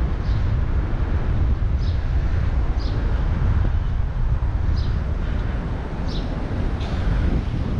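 Wind buffeting the microphone of a helmet-mounted action camera while cycling, heard as a loud, steady low rumble. Short high chirps come every second or so over it.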